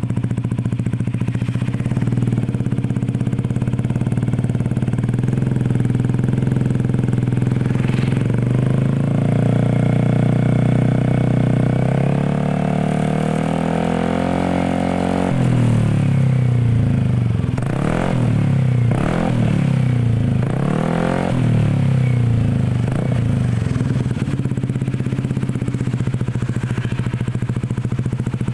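Automatic scooter's engine sounding through an F2Racing Trioval M stainless slip-on muffler in a sound check. It idles, then is held at slowly climbing revs for several seconds before dropping back abruptly. It is blipped a few times with quick rises and falls, then settles back to idle.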